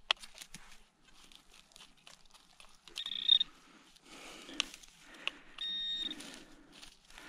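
XP Deus metal detector sounding short, high target beeps twice, about three seconds in and again about six seconds in, the second one buzzier, as it signals a metal target in the dug soil. Between the beeps the digging tool scrapes and clicks in dry earth.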